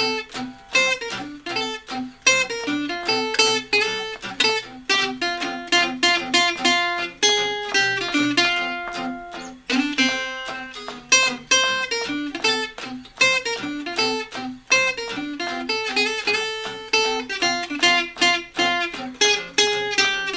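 Two acoustic guitars playing together, an Aiersi Gypsy jazz guitar and a tenor-hybrid guitar, with quick runs of picked notes over chords.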